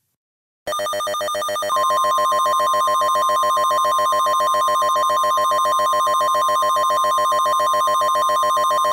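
Emergency alert tone: a harsh, rapidly pulsing buzz starts about a second in, and a steady high single tone joins it about a second later. Both hold loud and unchanging, announcing the next alert.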